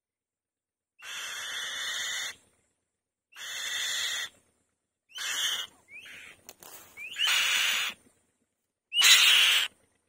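White-tailed kite giving about five loud, harsh, rasping calls, each up to about a second long, some starting with a short rising whistle.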